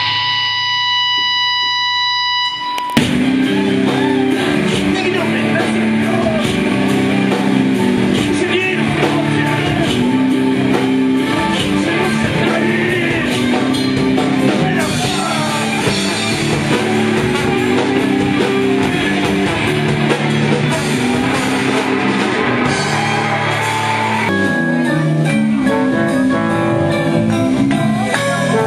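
Live rock band playing loudly: electric guitar, drums and a tambourine on a mic stand struck with a drumstick. A steady held tone rings for about the first three seconds before the full band comes in.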